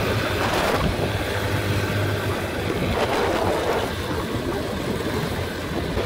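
Motorbike running along at riding speed, its engine a low steady hum under wind rushing over the microphone.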